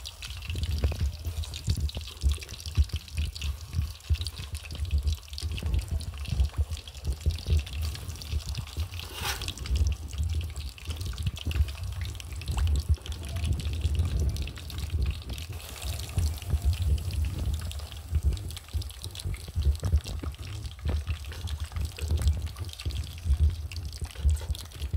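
Halved potatoes deep-frying in hot oil in an aluminium pot: a steady, dense crackling sizzle with bubbling, over a low uneven rumble.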